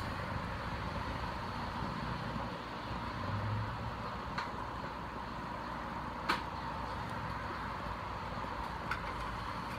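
A steady background hum with three light clicks as a plastic helmet is handled, the loudest about six seconds in.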